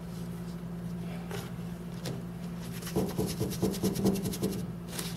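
A paintbrush rubbed quickly back and forth on a paper surface to wipe off excess paint: a fast run of scratchy strokes starting about three seconds in and lasting about a second and a half, with a couple of lighter single scrapes before it. A steady low hum runs underneath.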